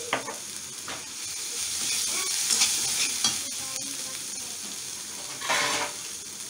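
Onions, garlic and green chillies sizzling in hot oil in a metal kadai while a metal spatula stirs and scrapes freshly added chilli powder and turmeric through them. A louder rush of sizzle and scraping comes near the end.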